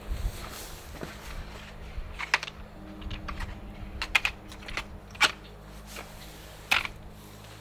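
A run of irregular sharp clicks and clacks, a few of them louder, about two, four, five and nearly seven seconds in, over a low rumble.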